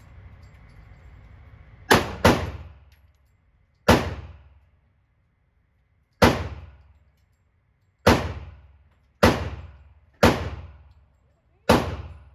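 Eight gunshots fired at an irregular pace, the first two in quick succession, each with a short echoing tail.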